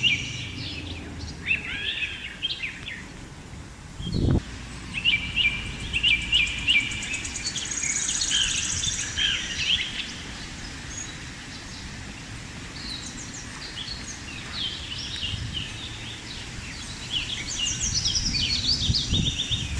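Several birds chirping and trilling in short repeated calls, over the low rumble of wind buffeting the microphone, with a single low thump about four seconds in.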